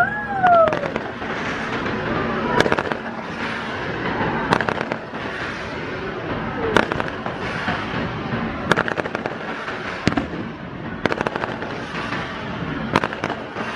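Fireworks display: aerial shells bursting with sharp bangs every second or two over a continuous crackle.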